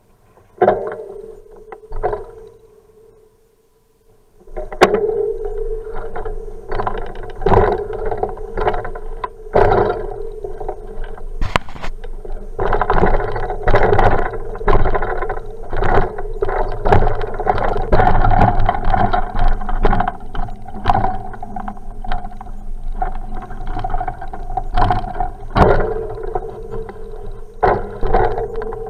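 A bicycle ride recorded through an action camera's waterproof housing: a couple of sharp knocks early, then, from about four seconds in, a continuous rumble with frequent knocks and rattles as the bike rolls over paving and the rails of a level crossing.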